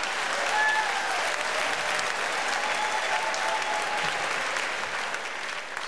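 Theatre audience applauding, with a few voices in the crowd, easing off slightly near the end.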